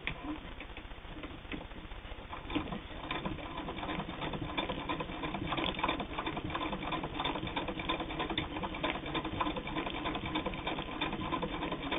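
Hand-cranked Singer 99 3/4-size all-metal sewing machine stitching through eight layers of heavy denim, in a rapid, even clicking rhythm. It starts about two and a half seconds in and gets louder and steadier over the next couple of seconds.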